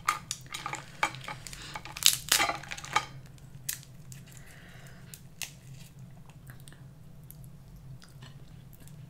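Cooked Dungeness crab leg shells cracked and snapped open by hand: a quick run of sharp crunches and clicks in the first three seconds, then a few scattered clicks as the meat is pulled out.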